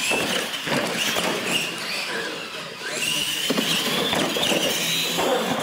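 Retro-style electric R/C monster trucks racing. Their motors and gears whine, rising and falling in pitch with the throttle, with scattered knocks as the wheels hit the track and ramps.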